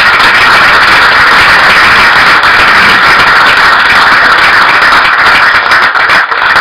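Audience applauding: loud, dense clapping close by, starting abruptly and holding steady throughout.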